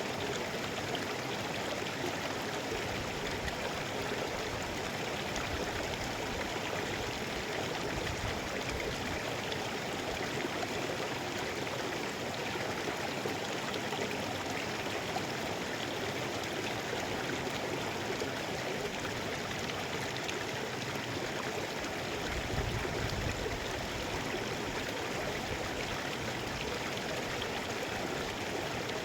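Mountain stream rushing steadily over rocks, an even wash of water noise with a brief low surge a little past two-thirds through.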